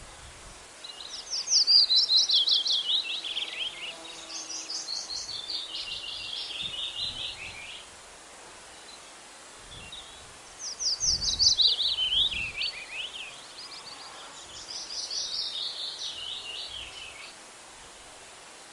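A songbird singing two long songs, each a fast run of trilled notes that falls in pitch, followed by a second trilled phrase, over a steady faint background hiss.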